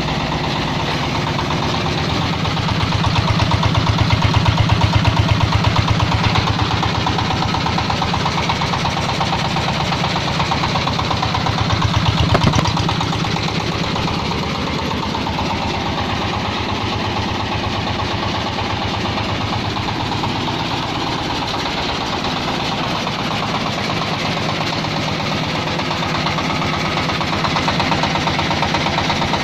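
IN-DA 24 hp diesel engine of a mobile rice mill running steadily with a rapid, even knock, growing louder a few seconds in and again briefly around twelve seconds.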